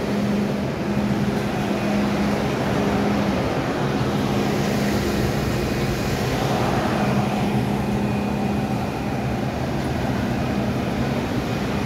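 MTR M-Train standing at a station platform with its doors open: its onboard equipment gives a steady hum, with a swell of hissing noise for a few seconds in the middle.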